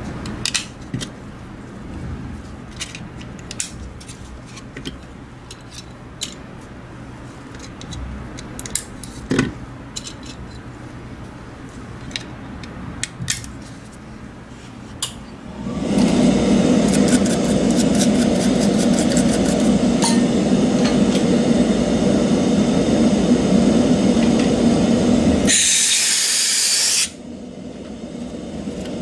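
Small plastic clicks and taps as the parts of a computer mouse shell are handled. About sixteen seconds in, a loud steady machine noise starts. Near the end it gives way to a sharp hiss lasting about a second and a half.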